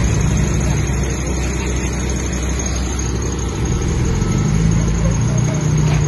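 Diesel engine of heavy earthmoving machinery running steadily with a low throb.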